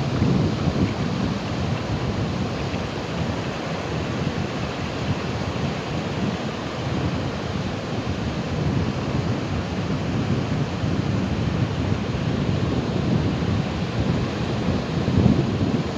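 Ocean surf: waves breaking and washing in a continuous, deep wash of noise, swelling a little near the start and again about fifteen seconds in.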